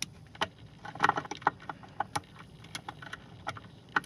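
Scattered small clicks and light metallic ticks as a wire end and terminal screw are handled at a pool pump's wiring terminal block.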